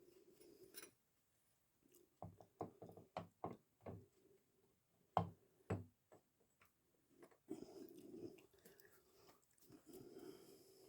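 Light clicks and taps of motorcycle clutch parts being handled and fitted during reassembly: a quick run of small clicks, then two sharper ones, the second louder.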